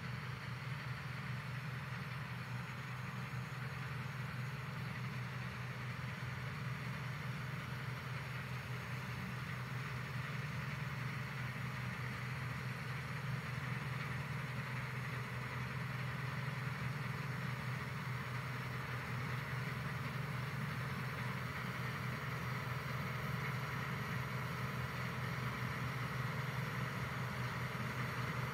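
Claas Dominator 58 combine harvester running while harvesting, a steady drone of its engine and threshing machinery that grows slightly louder as the combine comes closer.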